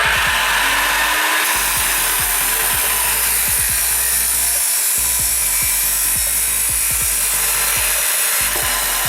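A power tool running under load on metal, a loud steady noise that starts abruptly.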